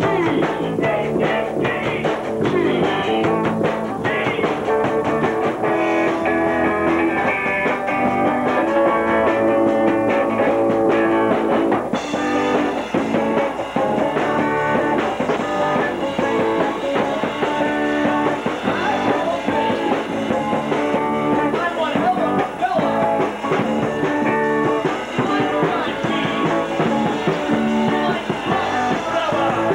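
Amateur rock band playing live on electric guitar and drum kit. The sound turns abruptly brighter about twelve seconds in.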